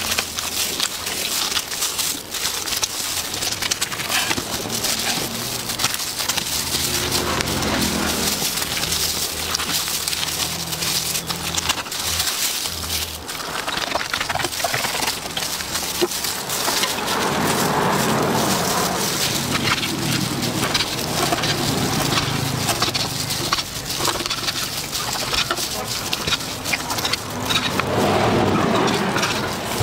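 Knife cutting and scraping through the charred, crisp skin and meat of a charcoal-roasted crocodile on a wooden board: a dense crackling crunch with many small sharp ticks, growing fuller and louder about halfway through and again near the end.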